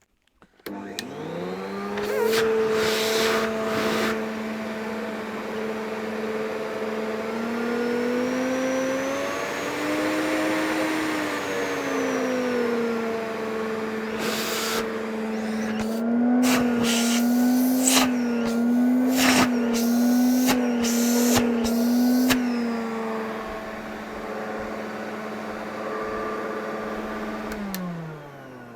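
Miele S234i canister vacuum cleaner's 1000-watt motor switched on, spinning up and running with a steady whine, its pitch rising and falling for a few seconds midway. It wavers in the second half with several sharp clicks and knocks, then winds down near the end. It sounds a little rough: working, but badly in need of a clean.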